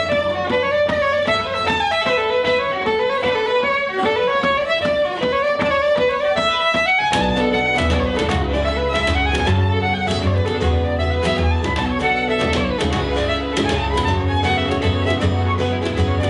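Acoustic band music led by a fiddle playing a quick melody. About seven seconds in, a fuller accompaniment with a low bass line and strummed guitar joins in.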